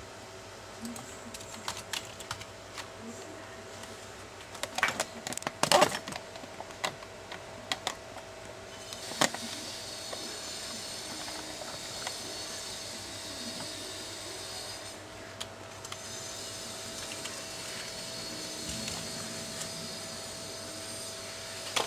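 Computer keyboard typing and key clicks, scattered, loudest and thickest about five to six seconds in. From about nine seconds in a steady hiss joins, over a faint constant whine.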